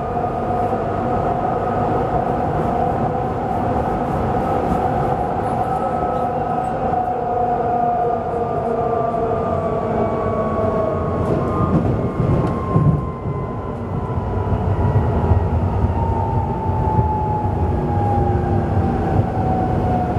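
Duewag B80D Stadtbahn light-rail car running, with a steady rumble of wheels on track under a whine that falls slowly in pitch as the car slows. There are a few knocks about two-thirds of the way through.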